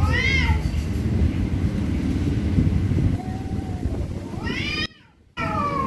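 Cats yowling at each other in an angry standoff: long wavering yowls that rise and fall in pitch, one right at the start, a fainter one about three seconds in, and a drawn-out one near the end, cut by a brief dropout. A low rumble runs underneath during the first half.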